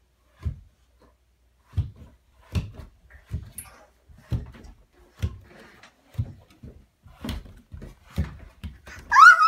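A small child bumping down wooden stairs on her bottom, one step at a time: about ten dull thumps, roughly one a second. Near the end the child gives a loud, high-pitched excited squeal.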